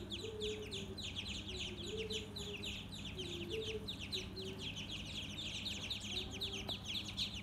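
A group of ducklings peeping without pause, many quick, high, downward-sliding peeps overlapping one another.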